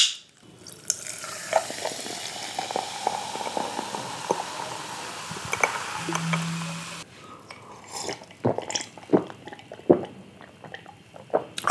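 Pepsi fizzing as it is poured into a glass: a steady carbonation hiss full of tiny crackles for about six seconds, cutting off abruptly, then a few soft clicks.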